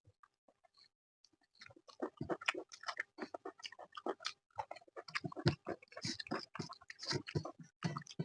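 Close-miked wet chewing and lip-smacking of a person eating chicken curry with rice and naan, dense and irregular. It starts about a second and a half in, after a few faint clicks.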